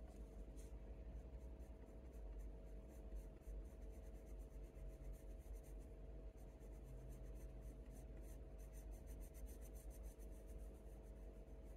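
Faint scratching of a Faber-Castell Polychromos colour pencil drawn in short, light strokes across hot-press watercolour paper, with a low steady hum underneath.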